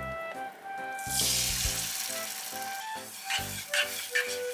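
Beaten egg sizzling in an oiled rectangular tamagoyaki pan, the hiss starting suddenly about a second in. Near the end, chopsticks clicking and scraping against the pan as the egg is stirred.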